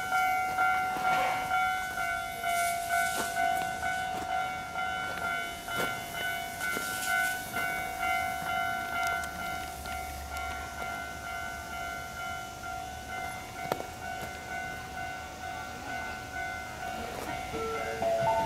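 Japanese level-crossing warning bell ringing, a steady pitched ding repeated at an even rhythm.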